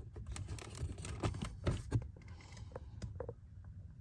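Irregular small plastic clicks and taps of a fuse being handled and pushed into a slot in the interior fuse box, fading out after about three seconds.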